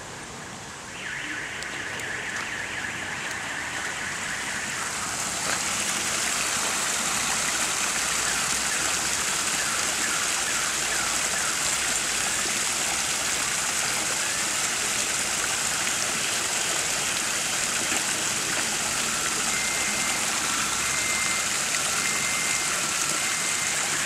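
Small creek waterfall splashing over rocks into a pool: a steady rushing of water that grows louder in two steps during the first few seconds, then holds.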